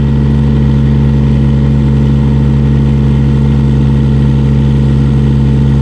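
Kubota D722 three-cylinder diesel engine of a 1.2-ton mini excavator running steadily under throttle while its hydraulics pull the boom up against a ground anchor during a lifting-capacity test.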